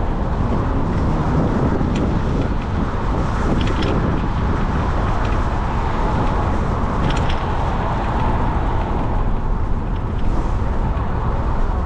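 A car driving along a road: steady road and engine noise, with a few faint ticks.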